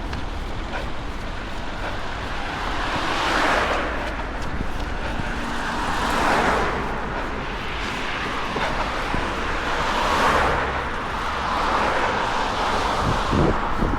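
Cars passing one after another on a city street: about four swells of tyre and engine noise, each rising and fading over a second or two. A steady low rumble of wind on the microphone runs underneath.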